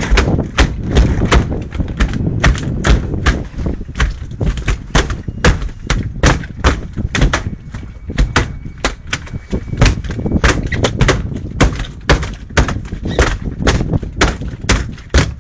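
A freshly landed halibut thrashing on a boat's deck, its body and tail slamming the boards in a long irregular run of loud thuds, two to four a second.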